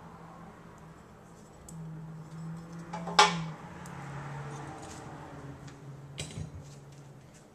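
Metal trivet clanking once, sharp and loud, as it is handled and lifted off a granite countertop, with a second, softer clink about three seconds later.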